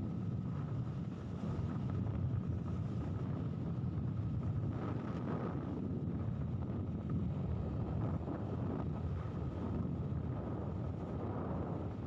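Steady engine noise from a moving vehicle, with wind buffeting the microphone.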